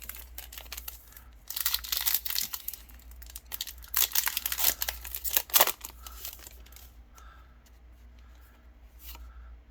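Foil Yu-Gi-Oh! booster pack being torn open by hand, with the wrapper crinkling: two stretches of tearing and rustling about two and four seconds in, and a short sharp rip just before six seconds, then quieter handling.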